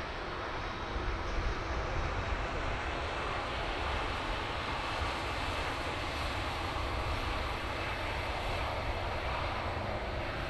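Jet airliner's engines running at taxi power: a steady rush of engine noise over a low rumble.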